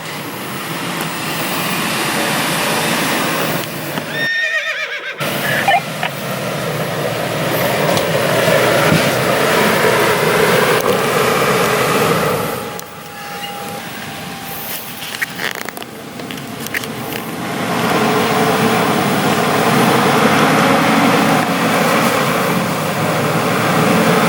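Off-road 4x4 truck engine revving under load, rising and falling, with a brief drop-out about four seconds in.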